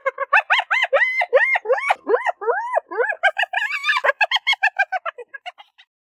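Spotted hyena giggling: a rapid run of short high-pitched whoops, each rising and falling in pitch, several a second, trailing off into fainter, quicker notes near the end.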